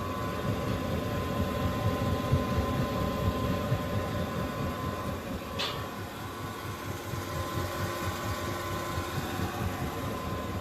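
Halstead combi boiler running on test with its new fan: a steady rushing noise over a fluctuating low rumble, with a faint steady whine that stops with a click about halfway through.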